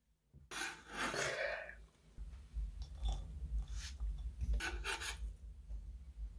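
Chef's knife blade scraping across a wooden cutting board, gathering diced red onion: one long scrape starting about half a second in, then several shorter scrapes.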